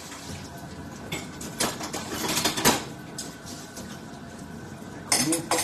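Metal utensils and cookware clinking and knocking against a pot. There are scattered light clicks, a denser run about two seconds in that ends in a sharper knock, and another short cluster near the end.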